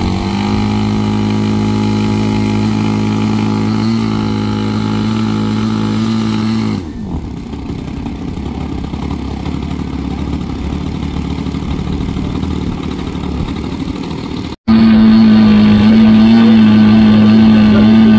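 22 cc petrol two-stroke engine of a large radio-controlled model plane running at high throttle with a steady note, then dropping abruptly to a low idle about seven seconds in. After a sudden break it is back at high throttle, louder than before, a steady high drone.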